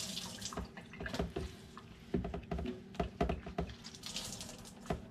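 Water from a kitchen tap and drips into the sink as hands are rinsed, with a scatter of light clicks and knocks from a plastic cheese mold and a metal baking tray being handled.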